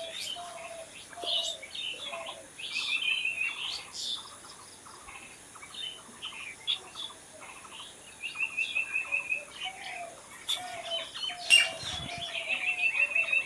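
Several wild birds singing and chirping together: many quick high chirps, a rapid trill of evenly repeated notes that comes three times, and a lower run of short whistled notes. The sharpest, loudest chirp comes near the end.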